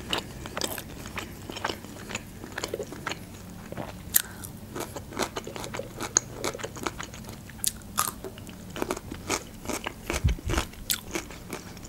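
Close-miked chewing of soft, cheese-filled Adjarian khachapuri bread: wet mouth clicks and smacks in an irregular stream, with a low thump near the end.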